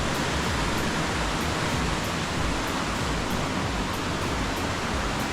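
Steady rush of fast-flowing water from a rain-swollen stream.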